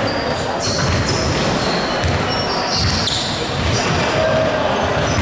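Basketball game sounds in a gym hall: a ball bouncing on the court with repeated thuds, and short high squeaks of sneakers on the floor, over a background of players' and spectators' voices.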